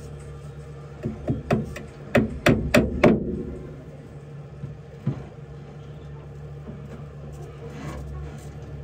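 A hammer striking, about eight quick blows over two seconds that come closer together toward the end, then one more blow a couple of seconds later. A steady low hum runs underneath.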